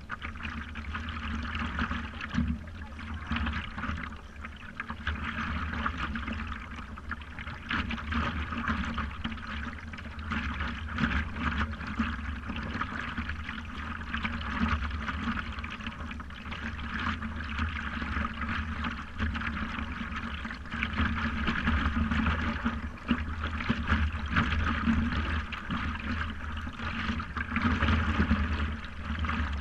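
Creek water lapping and splashing against the nose of a stand-up paddleboard, close to the microphone, in a continuous, irregular patter of small splashes.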